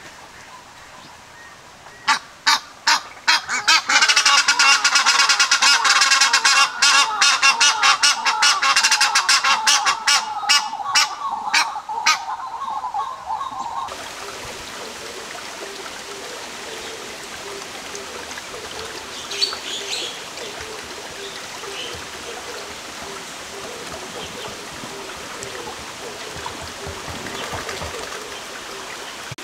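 A flock of geese honking loudly and rapidly for about ten seconds, the calls crowding over one another, then stopping abruptly. A steady, quieter rushing noise follows.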